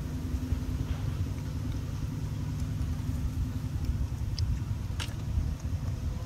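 A steady low rumble with a faint hum running through it, and a sharp click about five seconds in.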